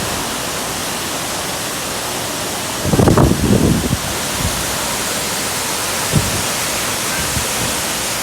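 Waterfall, a steady even rush of falling water. A brief louder low rumble comes about three seconds in.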